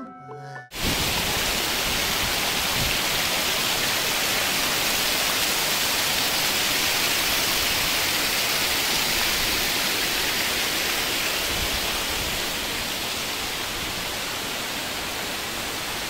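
Waterfall rushing: a steady, even roar of falling water that cuts in abruptly about a second in and eases slightly near the end.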